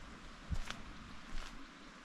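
Footsteps of a person walking on a forest trail at a steady pace, two soft steps about three-quarters of a second apart over a faint background hiss.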